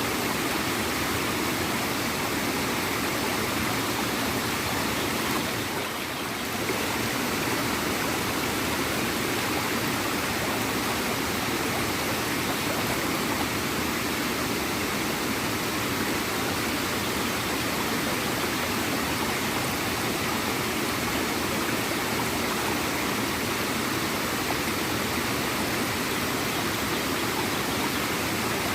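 Small waterfall splashing and gurgling steadily, with a brief slight dip in level about six seconds in.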